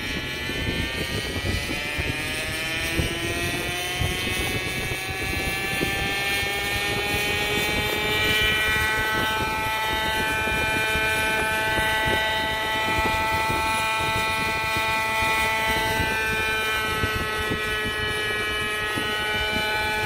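Gas-engined tandem-rotor unmanned helicopter with twin three-bladed rotor heads spooling up, its whine rising in pitch over the first several seconds, then running at a steady pitch as it lifts off and flies away.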